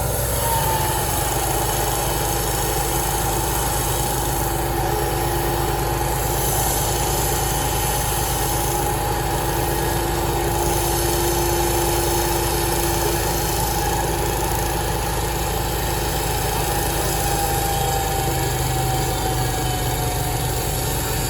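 A sawmill's engine running steadily, with a continuous whine that drops slightly in pitch near the end.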